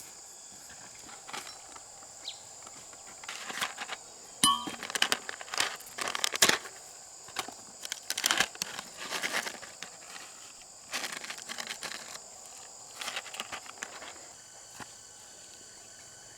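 Irregular bursts of rustling and crackling, short clusters coming and going, over a faint steady high whine.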